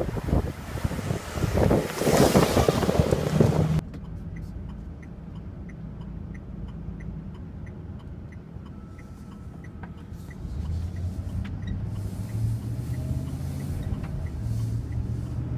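Wind buffets the microphone over a Chevrolet van's engine for the first few seconds. Inside the cab, the turn signal then ticks about twice a second over the idling engine. About ten seconds in, the engine takes up a low, steady hum as the van pulls away.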